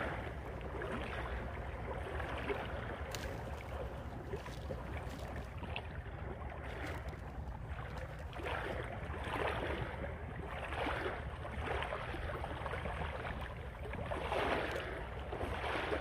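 Outdoor ambience of wind rumbling on the microphone, with lapping water. In the second half there are several rushing swells about a second or two apart.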